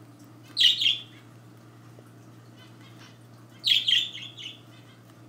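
A bird chirping in two short, high-pitched bursts about three seconds apart.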